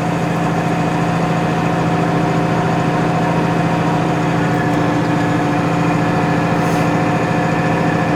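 Tractor engine running steadily at a constant speed, with an even hum and a fast, regular pulse.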